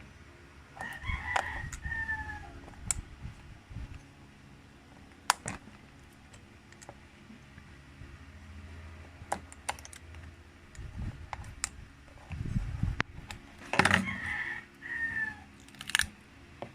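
A rooster crows twice, once about a second in and again near the end, each call about a second long and falling in pitch at its close. Scattered small clicks and knocks come in between.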